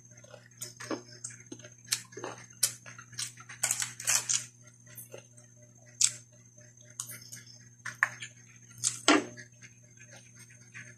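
Crunching and chewing of crispy fried fish eaten by hand with rice: irregular crisp crunches and clicks, louder about four and nine seconds in, over a steady low hum.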